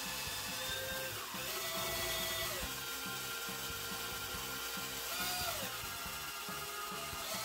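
Cordless drill running at low speed, drilling a pilot hole through an aluminium cover, its motor whine holding a steady pitch and then sliding to a new pitch several times as the trigger is eased.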